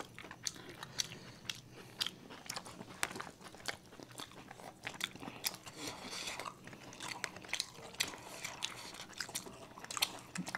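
Close-miked eating of momos: chewing and biting, with many short sharp clicks and crunches throughout.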